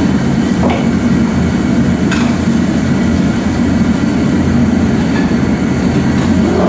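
Commercial gas wok burner running at high flame, a loud steady low rumble, with a couple of light knocks from the wok about one and two seconds in.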